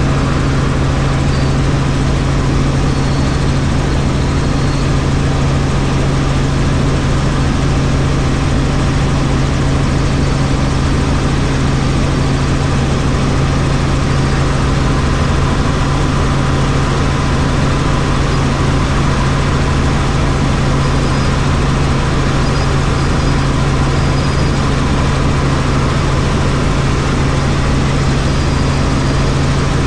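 Helicopter in flight: loud, steady rotor and turbine noise with a constant low hum, unchanging throughout.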